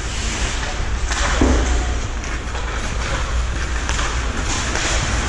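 Ice hockey play in a rink: a steady scrape of skates on the ice over a low rumble, with a couple of sharp knocks of sticks, puck or boards, the clearest about a second in.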